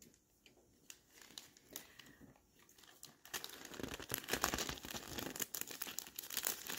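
Sheet of thick cellophane gift wrap crinkling and crackling as it is handled and gathered in the hands: sparse, faint crinkles at first, turning dense and louder from about three seconds in.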